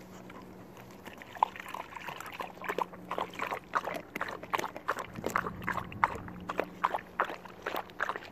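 Husky puppy lapping water from a collapsible dog bowl: a run of quick wet laps, about three a second, starting a couple of seconds in.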